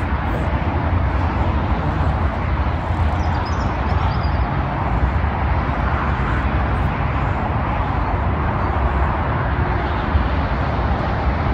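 Steady noise of motorway traffic.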